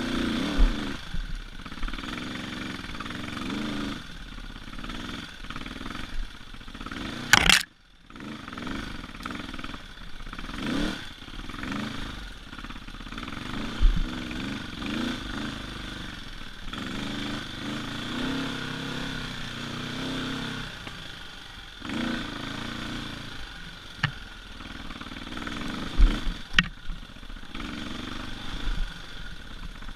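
Husqvarna TE450 dirt bike's single-cylinder four-stroke engine revving up and down while being ridden, with a few sharp knocks from the bike along the way.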